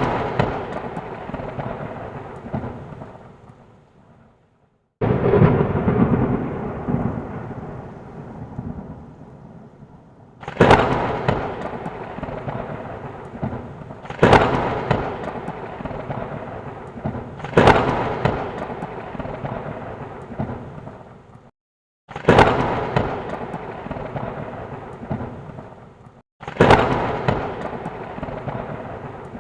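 Thunder sound effect: a series of about seven thunderclaps, each a sudden crack that trails off into a fading rumble. The claps come every three to five seconds, and some are cut off abruptly into a moment of silence.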